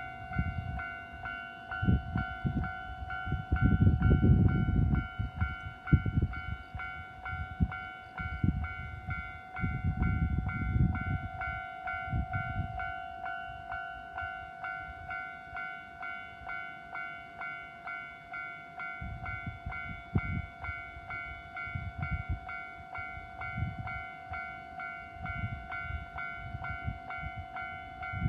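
Japanese level-crossing warning bell ringing in a rapid, even repetition throughout, while a limited express train passes over the crossing, its low rumble swelling strongly twice in the first half and more weakly later.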